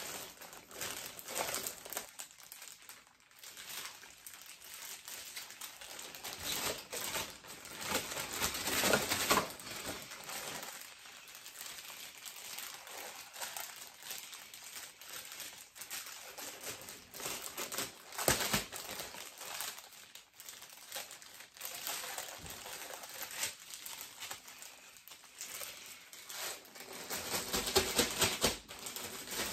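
Plastic packaging crinkling and rustling in irregular bursts, with small knocks, as a statue figure is unwrapped and taken out of its box.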